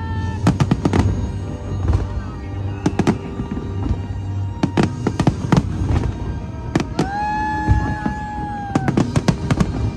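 Aerial fireworks exploding: many sharp bangs in quick succession, several in tight clusters of two or three, with background music underneath.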